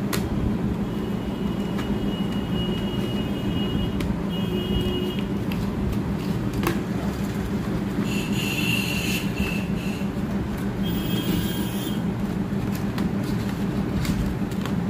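Steady low background hum, with several short high squeaks and a few light taps as a cardboard smartphone box and its inner accessory tray are handled.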